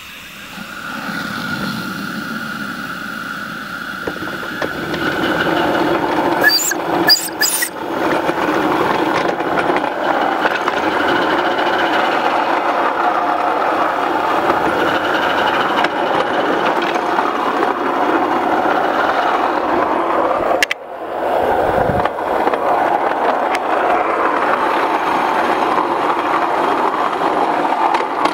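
Maxitrak Alice miniature live-steam quarry Hunslet locomotive running along the miniature railway track: a steady rumble and squeal of steel wheels on the rails, growing louder as the train gathers speed about five seconds in. A few sharp clicks come around seven seconds, and the sound dips briefly a little past twenty seconds.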